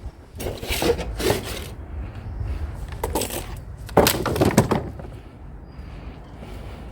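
Metal and plastic clattering and scraping in three bursts, the handling noise of wires being pulled out of a discarded fluorescent light fitting, over a steady low rumble.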